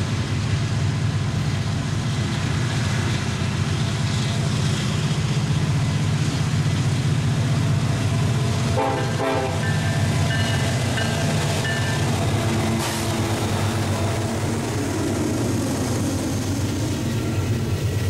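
Freight train rolling past: a steady low rumble of steel wheels on rail under container cars. About halfway through, mid-train diesel-electric locomotives go by, bringing a short cluster of higher tones, and hopper cars follow.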